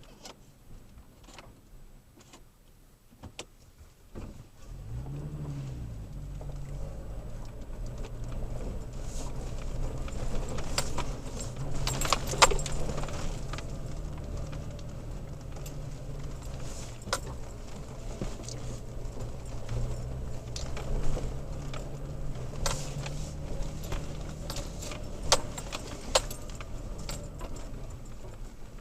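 Toyota Tacoma pickup's engine running at low trail speed, heard from inside the cab, picking up about five seconds in with a short rev. Over it come sharp clicks and a jangle of keys and loose things in the cab as the truck bumps over rough ground.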